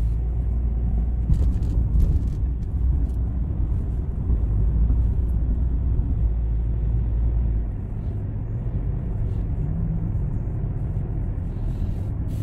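Steady low rumble of a car driving, heard from inside the cabin: engine and road noise. The deepest part of the rumble eases a little about eight seconds in.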